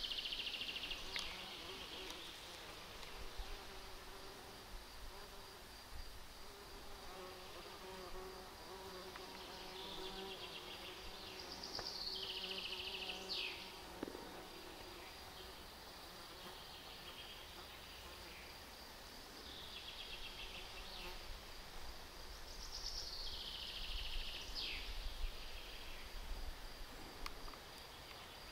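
A flying insect buzzing close by for several seconds, while a bird repeats a short descending trilled song phrase about every eleven seconds over a steady thin high tone: forest ambience.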